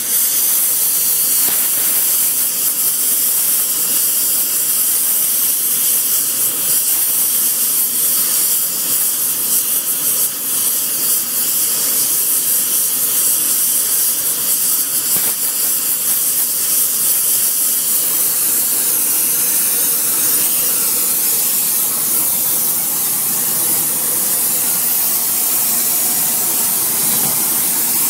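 Gas brazing torch flame burning with a steady hiss as it heats the edge of a steel hammer to braze on a hardfacing alloy.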